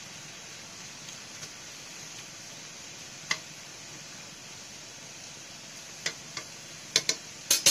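Water at a rolling boil in a pan, hissing steadily, while rice vermicelli is stirred in it with metal tongs. One tap of the tongs on the pan about three seconds in, then a run of sharp clicks and knocks in the last two seconds, the last of them the loudest.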